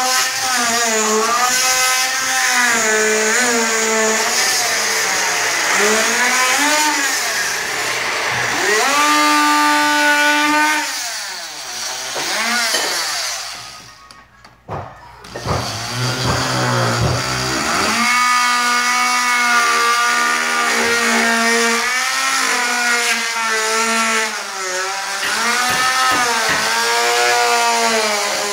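Small handheld power saw with a round blade cutting into drywall along the top of a countertop; its motor pitch wavers up and down as the blade bites and eases. It stops briefly about halfway through, then starts again.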